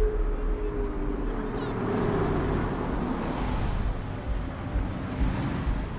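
Night street traffic: cars passing, a rushing noise swelling and fading about halfway through. A held note of the score fades out in the first two seconds.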